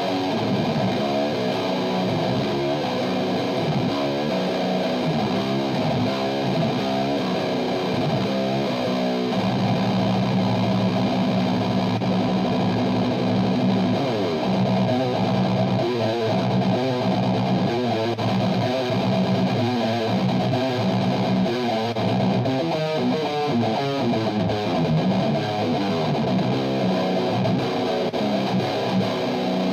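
Electric guitar through a Mesa/Boogie Road King II tube amp on a distorted, high-gain sound, playing riffs and fast runs. It holds a low chord for several seconds about a third of the way through.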